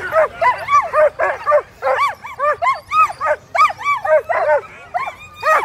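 A team of racing sled dogs barking and yelping together at the start line, eager to run. Short calls that rise and fall in pitch come several a second, overlapping at different pitches from many dogs at once.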